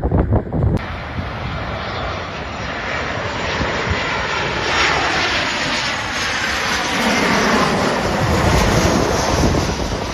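A fixed-wing airplane's engines passing close by with a steady roar, growing louder toward the end and starting to fade. Wind gusts on the microphone in the first second.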